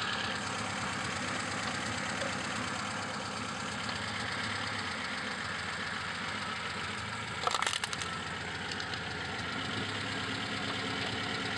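Car engine idling steadily, and a little past the middle a plastic tub cracks and crunches flat under the tyre in a quick cluster of sharp cracks.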